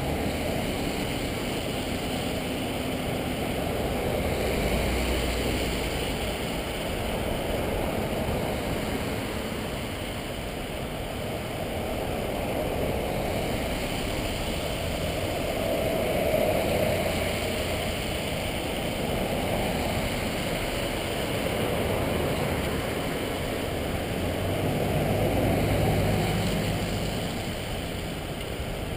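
Police vehicles driving past one after another, their engine and tyre noise swelling and fading as each goes by.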